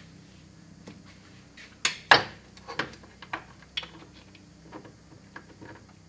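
Rubber hose being handled and laid over an engine bay, with a series of light knocks and clicks as it bumps against parts. The loudest pair of knocks comes about two seconds in.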